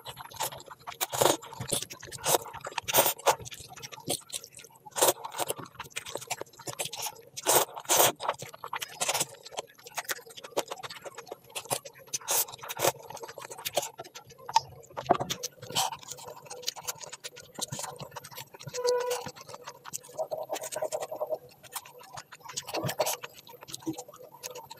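Close-miked mukbang eating sounds: a person chewing and smacking with their mouth, many sharp irregular clicks and scrapes.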